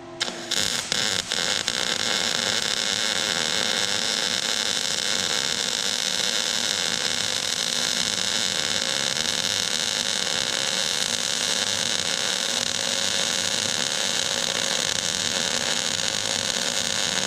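Arc welding on sheet steel: the arc strikes about half a second in, sputters a few times, then runs as a steady, even crackling hiss while the bead is laid.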